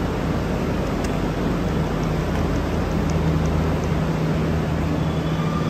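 Metro train at an elevated station platform: a steady rumbling noise with a constant low hum, joined about a second and a half in by a steady low-pitched drone.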